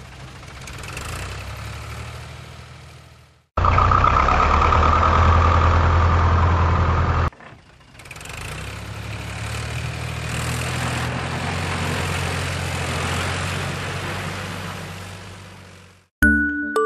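Heavy vehicle engine running in three stretches that cut in and out abruptly: a fading run, a louder run from about three and a half to seven seconds, then one that swells and dies away. A short run of chiming glockenspiel-like notes starts right at the end.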